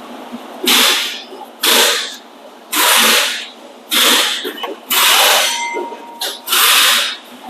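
Hand ratchet wrench clicking in repeated strokes, about seven, roughly one a second, backing out a bolt that has just been broken loose.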